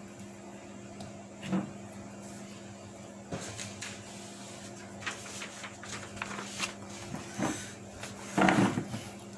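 Screwdriver tips prying and scraping in the plastic paper-feed path of a Canon inkjet printer, giving scattered light clicks and knocks over a steady low hum, with one louder burst near the end. The screwdrivers are probing the feed for a jammed object.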